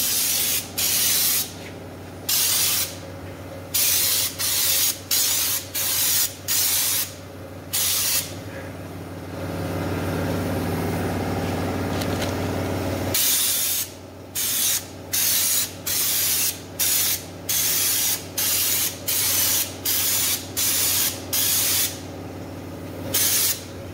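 Air-fed schutz spray gun hissing in short, repeated bursts, about half a second each with brief gaps, as it sprays stone guard coating onto a car's underbody. Beneath it runs the steady low hum of an air compressor, which grows louder for a few seconds midway and then drops back suddenly.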